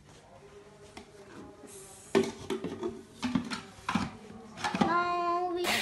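A child's voice vocalising without words, with a few sharp knocks from the grinder jar being handled. Near the end the voice holds one sung note for under a second, and a loud noise cuts in right at the end.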